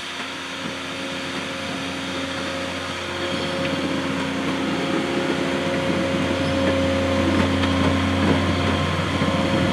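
Harsco RGH20C rail grinder's diesel engines running with a steady hum as the coupled units roll slowly past, growing louder toward the end.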